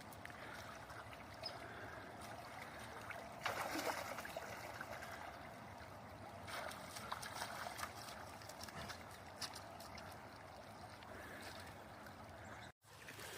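Shallow stream water running steadily, with a few brief splashes about three and a half and six and a half seconds in.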